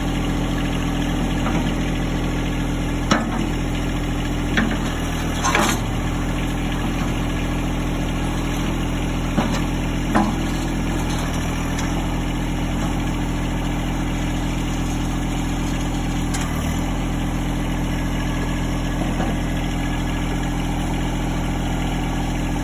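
Tractor engine idling steadily, with a handful of short metal clanks between about three and ten seconds in as the loader bucket is unhooked and pulled off.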